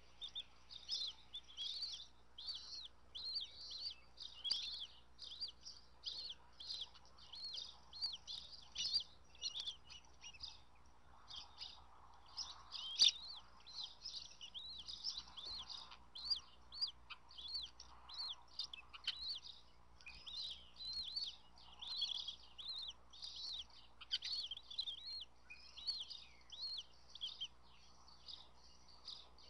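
Bald eagle chicks peeping continuously during a feeding: rapid, high-pitched chirps, several a second, with one sharp tap about halfway through.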